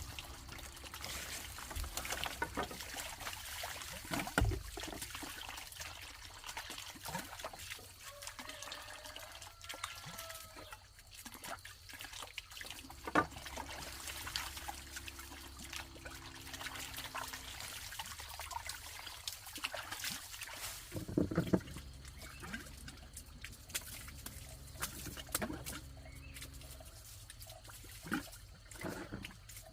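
Water trickling and splashing, with scattered knocks and clicks throughout and a few louder knocks.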